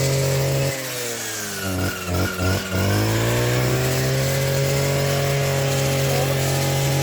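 Brushcutter engine running at high speed. About a second in its pitch sags, and it stutters a few times before climbing back to a steady high speed, as happens when the machine slows in brush and picks up again.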